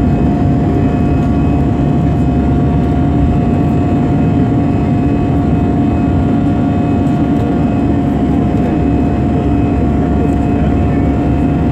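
Jet airliner's engines running, heard from inside the passenger cabin: a loud, steady roar with a steady whine over it.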